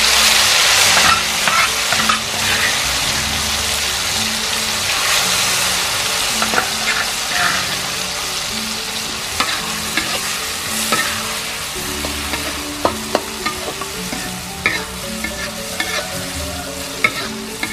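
Ground spice paste sizzling in hot oil in a wok as it fries, loudest just after it goes in and slowly settling. A metal spatula stirs it, tapping and scraping against the wok now and then, more often near the end.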